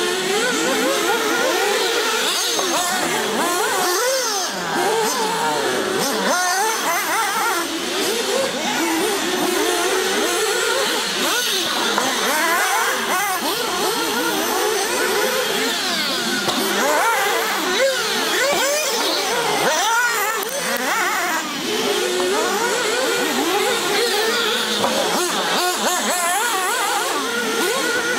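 Several 1/8-scale nitro RC cars racing, their small two-stroke glow engines whining together, pitches rising and falling continually as the drivers work the throttles.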